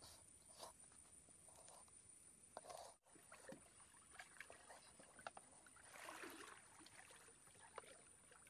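Near silence: faint flowing river water, with a few soft scattered clicks and taps.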